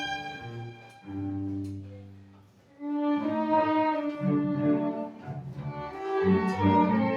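Instrumental music from a small ensemble, in held notes over a low line. The playing fades almost away about two and a half seconds in, then resumes fuller with several parts sounding together.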